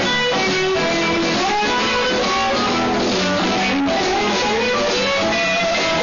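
Live blues band playing an instrumental shuffle on electric guitars with drums, a lead guitar line bending and sliding between notes over the rhythm.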